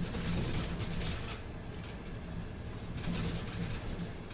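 City bus on the move, heard from inside the passenger cabin: the engine hums low and swells now and then, over road noise and the clicking rattle of loose interior fittings.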